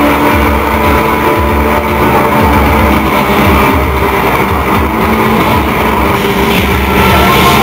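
Loud live aggrotech/industrial band music in a droning, distorted passage: a heavy low bass pulse under a held, grinding synth drone.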